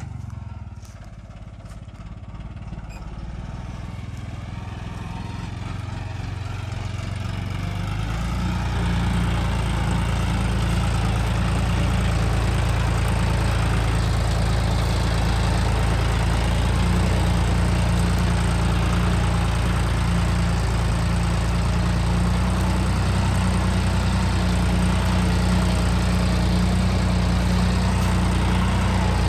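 John Deere 5310 tractor's three-cylinder diesel engine running steadily under load while pulling a mouldboard plough through wet, heavy soil. It grows louder over the first ten seconds or so as the tractor comes close, then holds steady.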